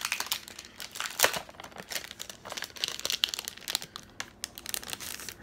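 Clear plastic wrapper crinkling and crackling in irregular snaps as it is handled and opened around a stack of card-stock postcards, with one louder crackle about a second in.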